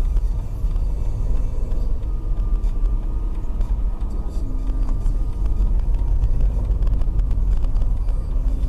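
Steady low rumble of a car driving, engine and road noise picked up by a dashcam.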